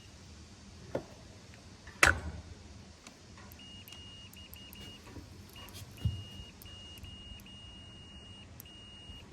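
Multimeter continuity beeper sounding in a series of irregular short and longer beeps at one steady high pitch, the meter's signal that a disconnect fuse has continuity. A sharp knock comes about 2 seconds in and a smaller thump about 6 seconds in.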